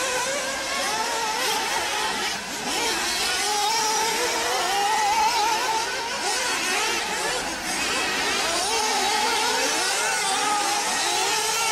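Radio-controlled off-road cars running on a dirt track, their motors' buzzing pitch rising and falling continuously as they accelerate and slow through the course.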